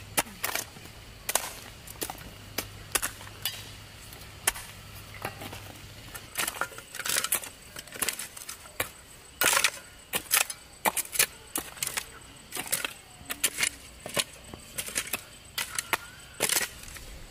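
Metal-bladed hand hoe chopping into dry, stony soil: a run of sharp strikes at an uneven pace, up to about two a second at the busiest.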